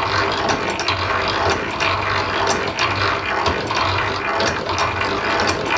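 Hand-cranked antique Silver post drill being turned, its gearing and feed mechanism clicking and clattering in a rapid, uneven run of clicks.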